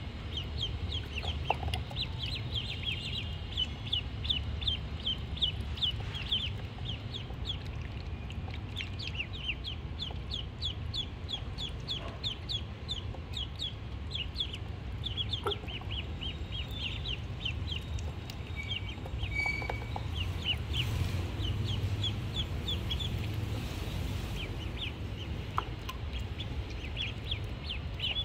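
A group of ducklings peeping nonstop, several short high peeps a second, each falling in pitch and overlapping one another.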